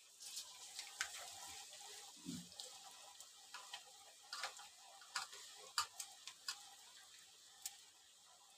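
Onion pakoda batter, just dropped in, deep-frying in hot oil in a kadhai: a faint steady sizzle with irregular sharp pops and crackles.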